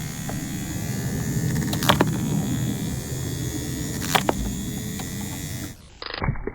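Small DC flywheel motors of a homemade launcher whirring steadily, with two sharp snaps about two seconds apart as it fires during a test; the whir stops near the end.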